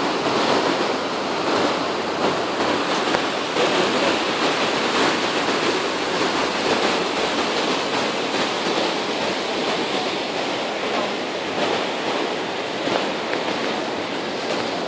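A fast, rocky mountain river rushing over boulders: a loud, steady rush of whitewater.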